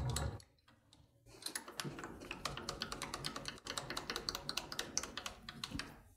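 A low hum that stops within the first half second. Then a long run of rapid, irregular light clicks and clatter of metal tooling being handled at a metal lathe as the boring bar is put away and the set-up changes for reaming.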